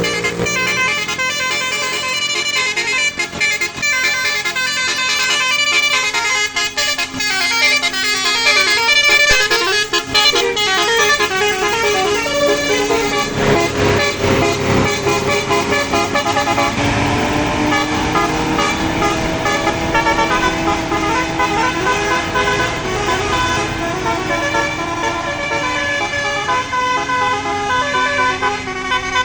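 Bus 'telolet' horn: a multi-tone musical air horn playing a tune in quick runs of short notes, with a bus's sound underneath.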